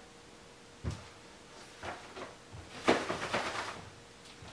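Someone walking into a room: a low knock about a second in, then footsteps and the rustle of a jacket and a carried bag, loudest about three seconds in.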